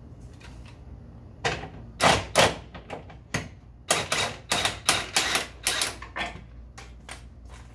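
Ratchet wrench clicking in about a dozen short, uneven strokes as the bolts holding a 2001 Lexus LS430's lower control arm are backed out.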